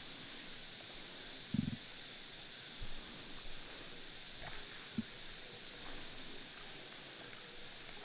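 Steady high hiss of outdoor nature ambience, with a few soft low thumps, the loudest about one and a half seconds in.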